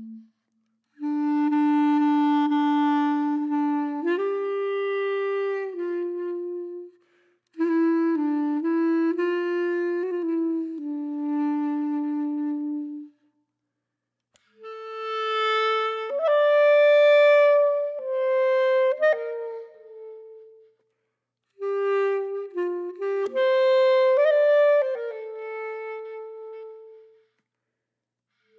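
Instrumental background music: a single melody line with a woodwind sound, played in phrases of a few seconds that break off into short silences several times.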